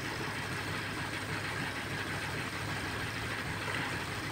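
A motor running steadily.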